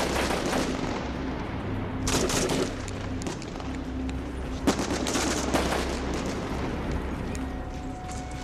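Battle gunfire: a dense, continuous crackle of rifle and machine-gun shots, with heavier volleys about two and five seconds in, over a steady low hum.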